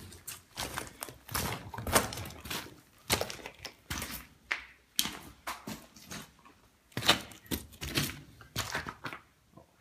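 Irregular knocks, scrapes and crunches of footsteps and scrambling over loose rock in a narrow mine passage, with sharper bangs about two seconds and seven seconds in.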